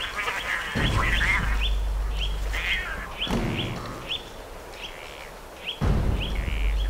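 A bird calling over and over, short high chirps about twice a second, with two louder stretches of low rumbling: one about a second in, the other near the end.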